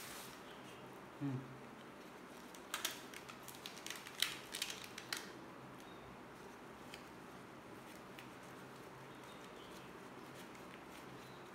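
Newspaper wrapping being handled and pulled apart, crinkling in a cluster of sharp crackles from about three to five seconds in. A brief low sound comes about a second in.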